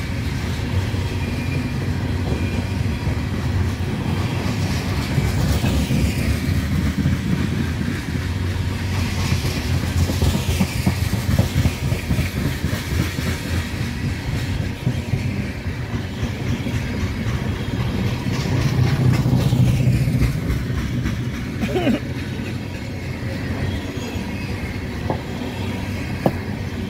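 Loaded coal train's open-top coal cars rolling past, a steady low rumble and clatter of steel wheels on the rails.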